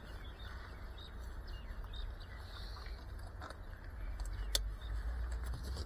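Low steady outdoor background rumble, growing a little in the second half, with faint high chirps and one sharp click about four and a half seconds in.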